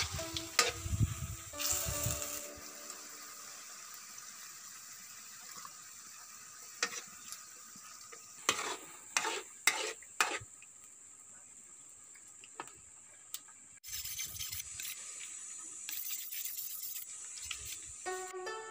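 Chopped taro sizzling in a metal wok over a wood fire, with a steady hiss. A metal spatula stirs and scrapes the pan in a run of sharp strokes a little past the middle.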